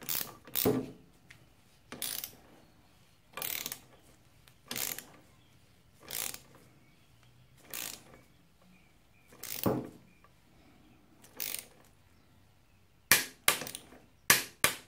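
Socket ratchet wrench being worked on the lower shock nut of a dirt bike's rear suspension linkage to tighten it to torque. It makes short ratcheting strokes about every second and a half, then a quick run of sharper clicks near the end.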